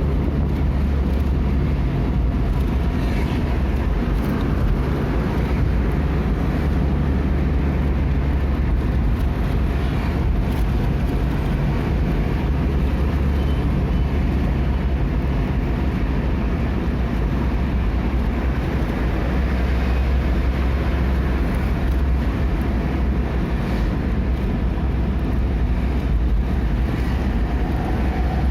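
Steady engine and road noise of a moving vehicle: an even low drone with a broad rushing hiss over it.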